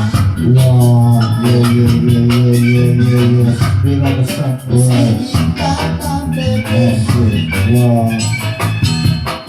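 Reggae music with a steady beat, deep sustained bass and organ.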